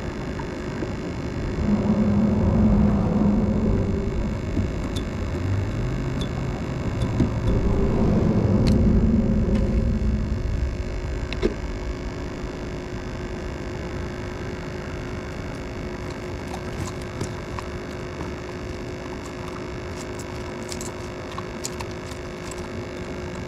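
Low traffic rumble from vehicles crossing the bridge overhead, swelling twice, about two seconds in and again around eight seconds, over a steady hum.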